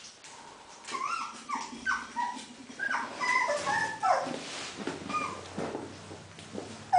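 Smooth collie puppies whimpering and yipping: a quick run of short high-pitched calls that rise and fall, starting about a second in, thickest in the middle and thinning out toward the end.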